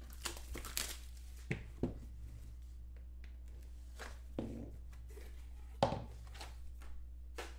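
Hands opening a Panini trading-card box: scattered short rustles, taps and tearing of cardboard and wrapping, with the lid lifted near the end. A steady low hum runs underneath.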